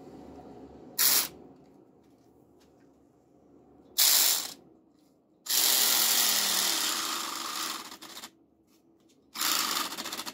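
Small battery-powered pumpkin carving saw buzzing against pumpkin rind in four bursts. The longest lasts nearly three seconds and slowly fades.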